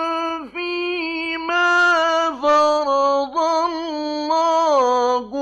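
Male Qur'an reciter chanting in the ornamented mujawwad style: a string of long, melodic held notes with brief breaks between them.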